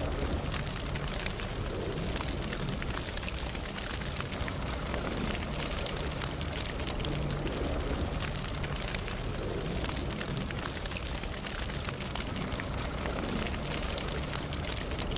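Campfire burning: steady crackling with many quick sharp pops over a low rumble of the flames.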